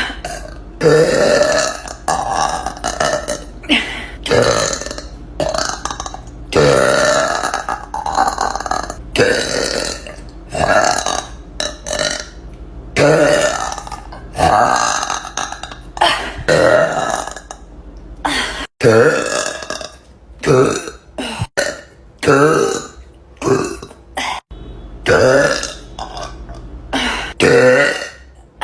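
A woman burping loudly over and over, about one burp every second, some of them long and drawn out.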